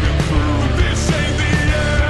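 Background rock music with a steady beat and a singing voice.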